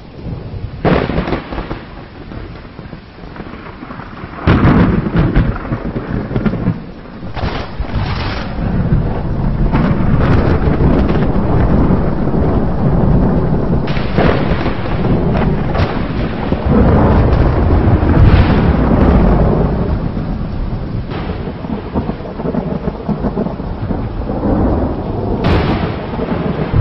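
Thunder from an overhead thunderstorm: almost continuous low rumbling broken by sharp cracks every few seconds, with a loud onset about four seconds in and another heavy roll past the middle.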